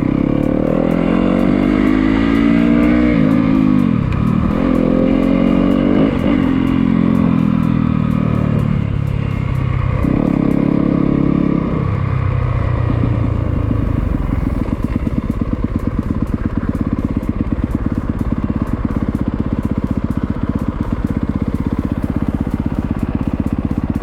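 2024 Yamaha YZ250FX dirt bike's single-cylinder four-stroke engine under way: it revs up and drops back several times through the gears over the first dozen seconds, then settles into a steady low-rpm putter.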